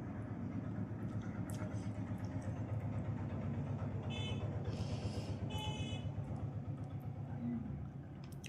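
Steady low engine rumble of a motor vehicle that fades near the end, with two short high-pitched tones about four and five and a half seconds in.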